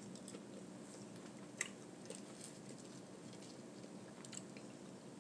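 A person chewing food, faint, with a few soft mouth clicks, the clearest about one and a half seconds in, over a faint steady hum.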